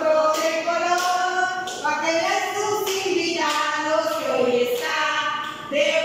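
A group of female voices singing a children's vowel song together without instruments, a woman's hand claps keeping the beat. The tune moves in held notes that step up and down, with a short break near the end.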